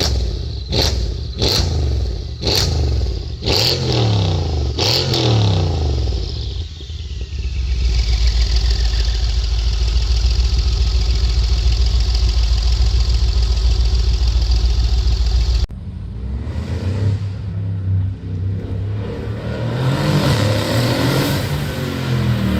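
Tuned twin-turbo V8 of a 900+ hp Mercedes CLS63 S AMG revving: a run of quick throttle blips, each falling back, then a long steady engine note that cuts off suddenly, and rising revs again near the end.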